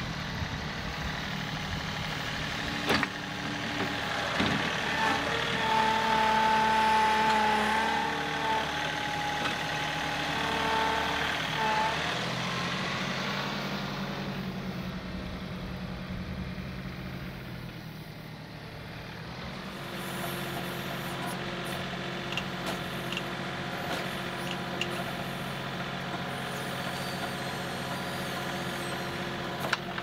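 John Deere 2038R compact tractor's diesel engine running under load as its backhoe digs mud. The engine's pitch goes up and down as the boom works: strongest between about 5 and 12 seconds, easing off, then steady again from about 20 seconds. There are a couple of sharp knocks in the first few seconds.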